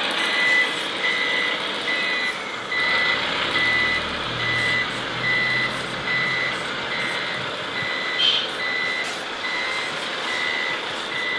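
Reversing beeper of a radio-controlled timber truck's sound module, beeping steadily about twice a second over the model's engine sound. A brief sharp sound comes about eight seconds in.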